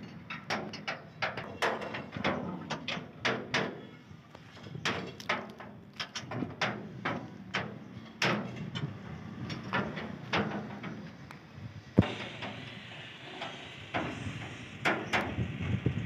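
Irregular sharp knocks and clacks, two or three a second, with one louder bang about twelve seconds in.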